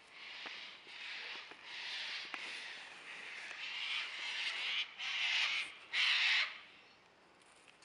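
A bird giving a run of harsh, rasping squawks, one after another, the loudest pair near the end before it falls quiet.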